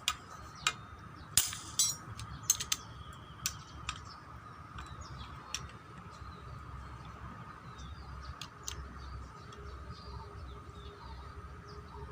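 Sharp clinks and clicks of metal tools and small parts being handled, about a dozen in the first half and sparser after, over a faint steady high hum and light bird chirps.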